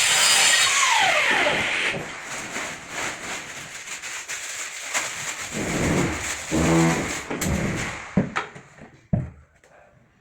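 Electric drill or screwdriver running in bursts, its motor pitch falling as it loads up, with a couple of sharp knocks near the end.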